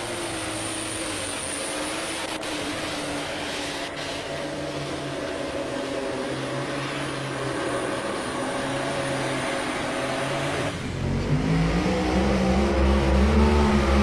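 Pulling tractor engine running hard under load with a high steady whine. About eleven seconds in it gives way abruptly to a louder, deeper engine, a mini rod's supercharged V8, rising in pitch as it pulls.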